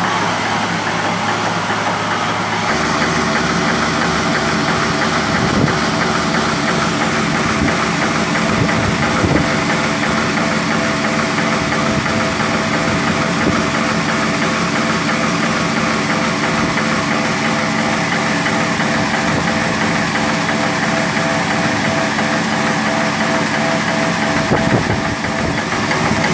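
Single-cylinder stationary engine running steadily on gas from a biomass gasifier, driving a generator by belt from its flywheel.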